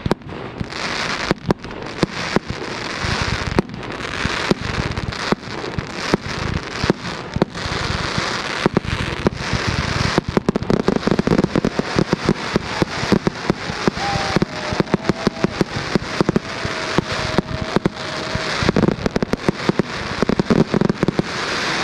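Ground-launched fireworks going off: a steady hiss of burning effects with rapid crackling and popping of many small bursts, the pops coming thickest in the second half.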